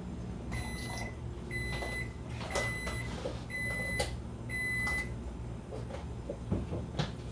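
Five evenly spaced electronic beeps from a kitchen appliance, each about half a second long at roughly one a second, over a low steady hum. A few light knocks follow near the end.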